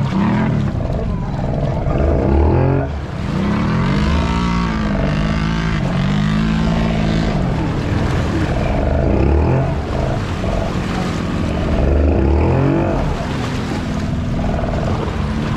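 Honda ATV engines running under throttle, their pitch rising and falling again and again as the throttle is opened and let off.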